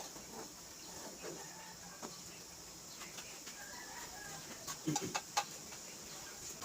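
Chickens clucking faintly over a steady high hiss, with a quick cluster of sharp knocks about five seconds in.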